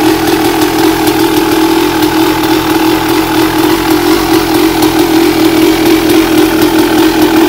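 1986 Honda CR250R's two-stroke single-cylinder engine idling steadily.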